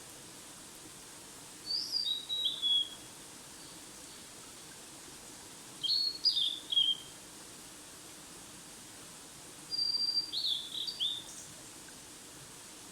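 A songbird singing three short phrases of quick whistled notes that step down in pitch, about four seconds apart.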